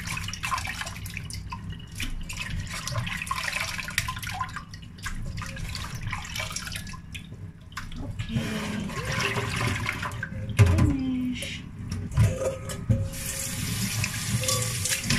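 Water splashing in a stainless steel sink as soaked dried mushrooms are rubbed and rinsed in a steel bowl, with scattered clatters of the bowl against the sink. Near the end the tap runs hard as the bowl is rinsed out.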